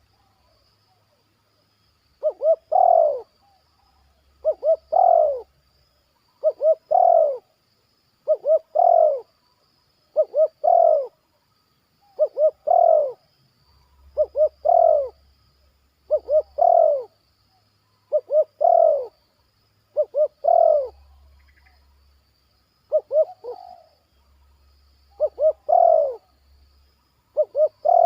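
A spotted dove (tekukur) cooing its song over and over, about one phrase every two seconds. Each phrase is a few quick short coos ending in a longer, falling coo.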